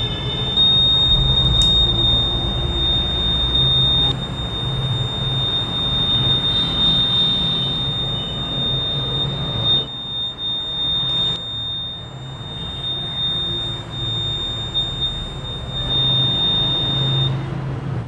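Homemade fire alarm's buzzer sounding one steady, high-pitched tone, set off by a lighter flame heating the tube-light starter that serves as its heat switch. The tone cuts off suddenly near the end.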